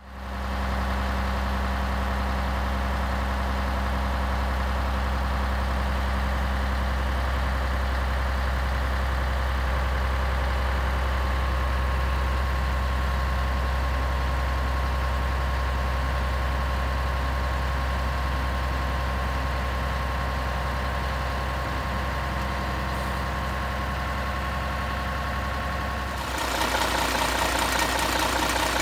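Scania LS 111 truck's 11-litre turbocharged straight-six diesel idling steadily. About 26 seconds in it gets louder and brighter, with a fast even clatter, heard close to the open engine bay.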